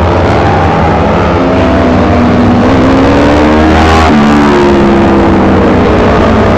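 Several Kawasaki Ninja 250 four-stroke racing motorcycles at high revs, their engine notes overlapping and rising in pitch as they accelerate through a bend. One passes close about four seconds in, its note falling in pitch as it goes by.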